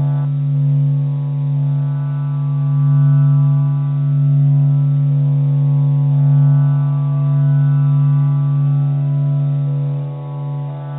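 A steady, unbroken low drone with a stack of overtones, the upper ones slowly swelling and fading: a meditation drone presented as the sound of the sun.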